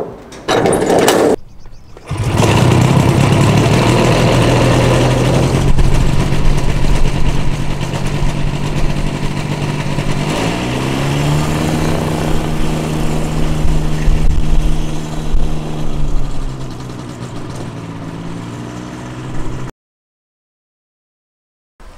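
Aerolite 103 ultralight airplane's engine running. After a short loud burst under a second in, it settles into a steady run from about two seconds in. About ten seconds in it revs up, holds the higher speed for several seconds, then drops back to idle before the sound cuts off suddenly.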